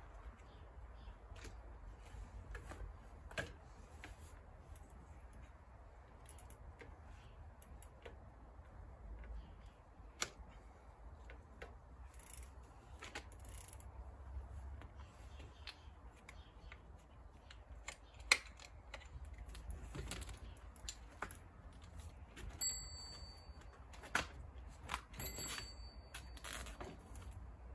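Scattered metallic clicks and clacks of a Raleigh Swift folding bike being folded by hand, as the pedal and the handlebar stem catches are worked; the clicks come more often in the second half, over a steady low rumble.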